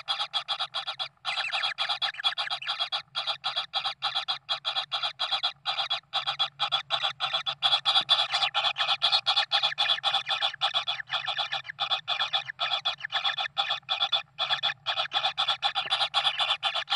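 Kingfisher chicks begging: a continuous, rapid series of short, harsh rasping notes, many a second, with only brief pauses.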